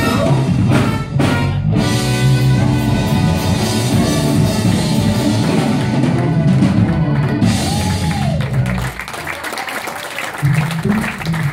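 Live soul band music: a female singer with trumpet, trombone, electric guitar and drums playing the last bars of a song, which ends about nine seconds in.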